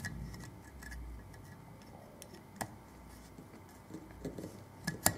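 Faint, scattered metallic clicks of a steel circlip and circlip pliers as the circlip is worked into its groove above a motorcycle sprocket-carrier bearing, with a few sharper clicks near the end.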